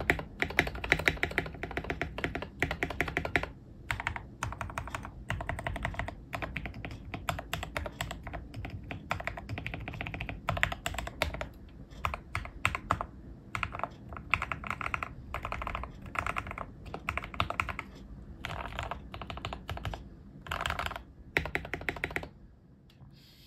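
Typing on a modified Obinslab Anne Pro 2 keyboard with lubed Gateron Red KS-8 linear switches, foam-dampened and tape-modded: a dense stream of keystrokes for the first few seconds, then bursts of fast typing with short pauses, fading out near the end.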